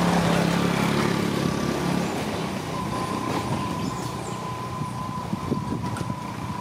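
A motor vehicle's engine running, a low hum that is loudest at the start and fades over the first couple of seconds, with a thin steady high tone underneath.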